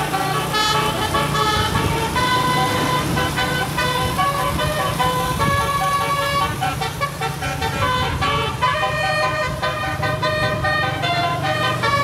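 Tour bus's multi-tone 'telolet' musical air horn playing a continuous melody, note after note at changing pitches, over the low running of the bus engine.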